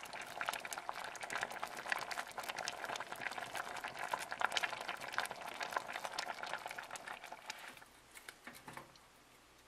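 Pot of bean soup bubbling at the boil on an electric stove burner: a steady, dense crackle of small bubbles popping that stops about eight seconds in.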